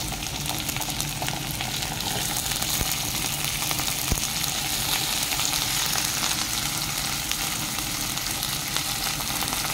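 Pieces of milkfish sizzling steadily in hot oil in a pan with sautéed onion, garlic and ginger, with a faint knock about four seconds in.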